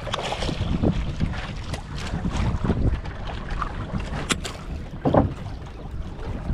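Wind buffeting the microphone and water slapping against the hull of a small fishing boat at sea, in irregular surges, with one sharp knock about four seconds in.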